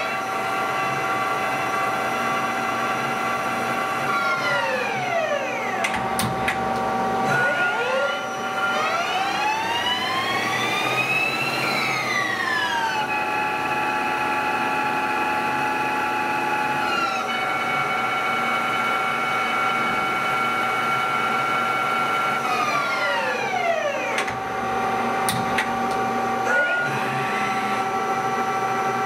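Bridgeport Romi CNC lathe running a program: a steady whine from the spindle drive, with its pitch falling and climbing twice as the spindle speed changes. A few sharp clicks come from the tool turret.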